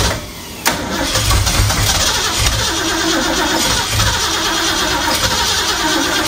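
Starter cranking the race Bronco's long-dormant engine, which turns over without catching. The cranking dips briefly, then picks up again with a sudden jolt under a second in and runs on steadily.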